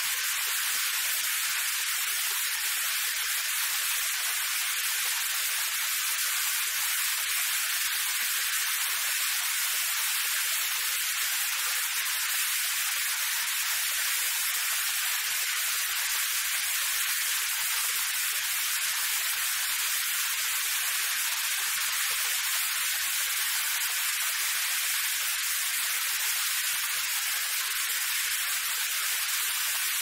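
Steady rain falling on a wet street: an even hiss with almost no low rumble.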